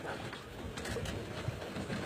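Faint wind and sea noise, a low even rush with a few soft low knocks.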